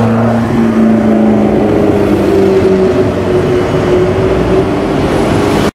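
Supercar engine running at low revs as it drives slowly past in city traffic: a steady drone that swells slightly as the car passes close, amid general traffic noise. The sound cuts off abruptly at the very end.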